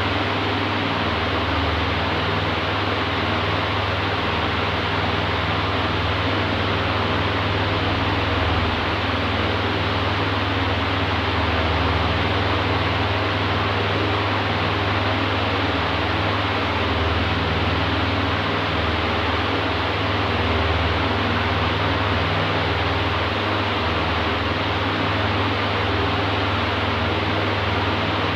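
Oscillating electric fan running steadily: an even rush of air over a low motor hum.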